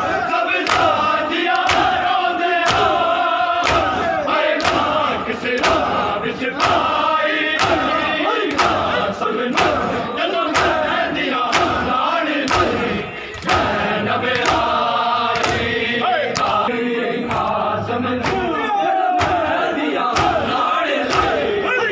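Large group of men doing matam, striking their bare chests in unison with sharp slaps a little faster than once a second, while chanting together in mourning.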